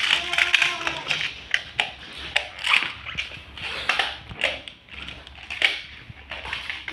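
Plastic magnetic building tiles clicking and clattering against each other in quick, irregular strokes as they are handled and snapped together.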